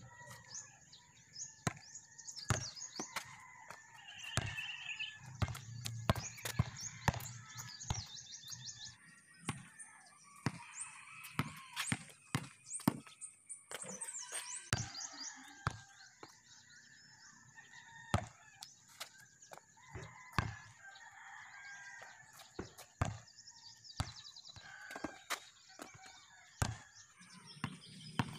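Basketball bouncing on a concrete court and hitting the hoop, in sharp, irregular hits, with birds calling in the background.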